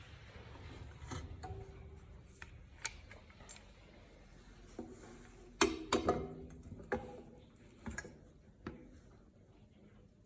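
Scattered metal clicks and clanks from a steel roller stand being assembled and a fastener tightened, a few of the knocks ringing briefly; the loudest clanks come a little past halfway.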